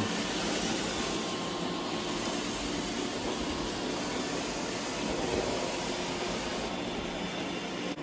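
iRobot Roomba robot vacuums running on carpet: a steady, even whir of suction motors and brushes.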